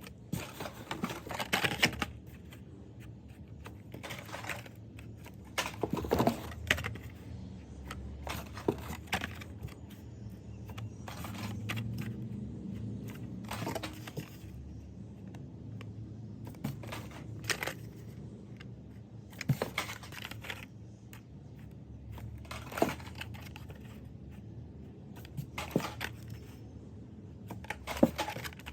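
Hot Wheels cars in their plastic blister packs being handled and set down: irregular sharp clicks and plastic rattles every second or two, over a low steady hum.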